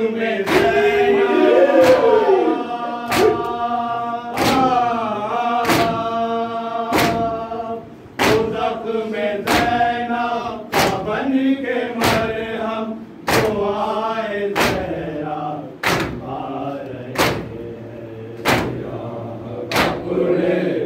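Mourners chanting an Urdu nauha (Shia lament) together, with a sharp unison slap of hands on chests (matam) about every 1.3 seconds keeping the beat.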